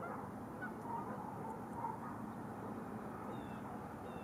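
Geese honking in the distance a few times, with a short high bird call near the end, over steady outdoor background noise.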